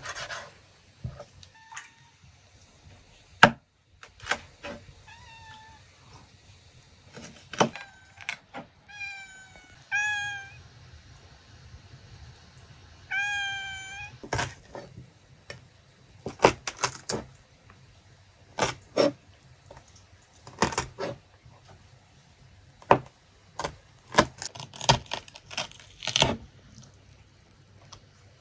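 Domestic tabby cat meowing repeatedly, a series of short rising-and-falling calls in the first half. Sharp knocks and scrapes of a knife on a wooden cutting board come throughout; the loudest is a single knock about three and a half seconds in, and they cluster thickly in the second half.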